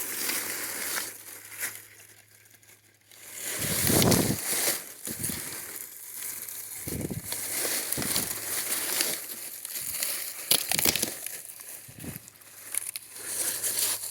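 Dry pumpkin vines and leaves crackling and crunching as pumpkins are picked, with a few dull thumps, the loudest about four seconds in.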